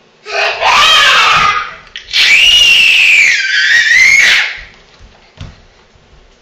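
Toddler squealing with delight: two loud, high-pitched squeals, the second longer, its pitch dipping and then rising again.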